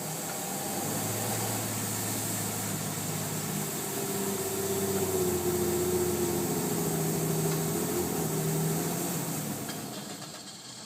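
2001 Chevy Blazer's 4.3-litre Vortec V6 revved under throttle, climbing to about 1500 rpm and holding there in a bog instead of revving higher, then dropping back toward idle near the end. The bog is a fault that new plugs, wires, cap and rotor, a new spider injector, a new fuel filter and a removed catalytic converter have not cured.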